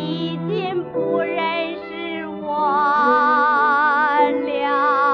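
A woman singing a slow old Chinese song over an instrumental accompaniment. Her voice has a strong vibrato, with short phrases and then a long held note in the middle. The recording is old and has been noise-reduced.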